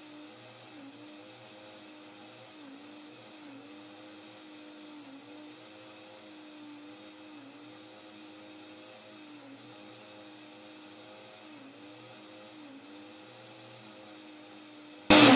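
Philco countertop blender motor running steadily while blending a liquid pudding mix, its hum dipping slightly about once a second. Near the end it jumps suddenly louder and its pitch starts to fall as the motor is switched off and spins down.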